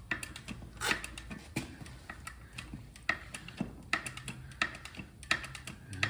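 Hydraulic jack press being hand-pumped to push a bearing off a rotor shaft: a series of sharp clicks, about one and a half a second, from the pump strokes and the loaded press.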